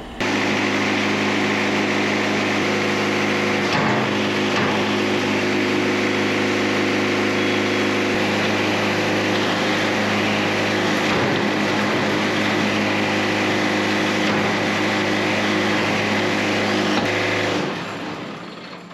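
Wood-Mizer portable sawmill's engine running steadily at constant speed, an even hum with a thin high whine over it. It starts abruptly and dies away near the end.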